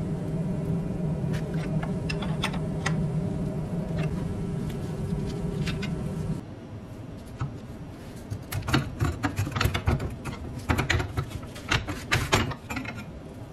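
A spanner clicking against a rusty nut on an old cast-iron brick carrier, over a steady low hum that stops abruptly about six seconds in. Then a quick run of sharp knocks and rattles as the wooden handle is twisted and worked loose from its iron socket.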